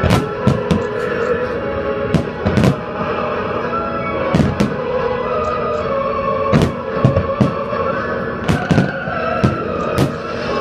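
Background music with sustained notes, over fireworks shells bursting with sharp bangs at irregular intervals, about a dozen in all.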